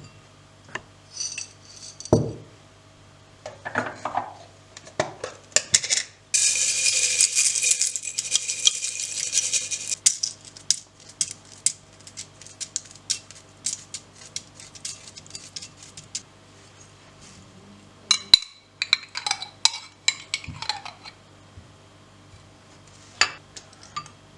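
Dishes and cutlery being handled: scattered clinks and knocks, a loud rushing noise for about four seconds some six seconds in, then a run of quick small clicks, and a few ringing clinks near the end.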